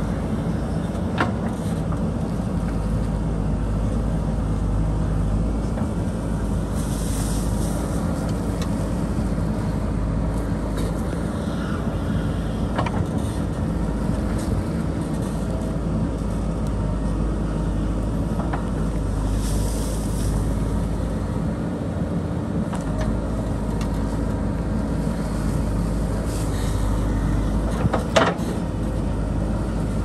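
JCB 3DX backhoe loader's diesel engine running steadily under load while the backhoe digs into an earth bank. A few sharp knocks of the bucket against soil and stone, the loudest near the end.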